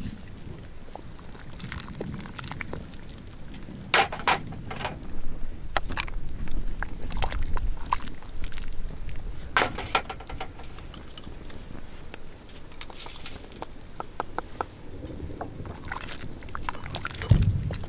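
Food-preparation handling sounds: scattered knocks and clicks of utensils and cookware, with a heavier thump near the end. A steady high chirp repeats about twice a second in the background.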